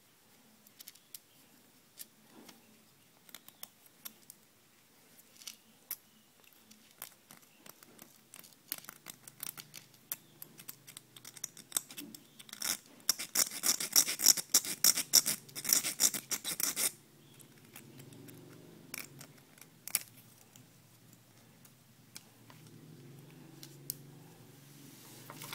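Small handling noises of fishing line and a hook being worked around a whittled wooden knot-tying stick: scattered ticks and scratches, with a dense run of rapid scratching and clicking about halfway through that is the loudest part.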